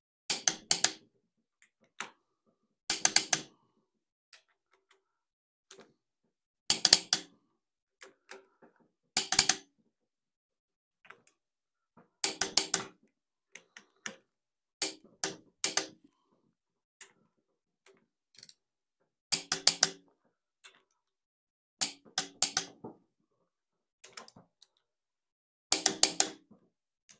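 Click-type torque wrench clicking on the cylinder head bolts of a Ford 200 cubic inch inline six: a quick double click on each bolt, one bolt every few seconds, each bolt checked at its final torque.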